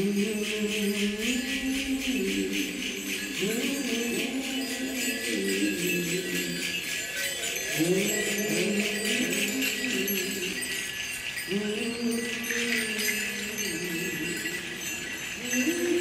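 Stage music: a slow, low melody of held and sliding notes over a steady metallic jingling, like a shaken bell rattle.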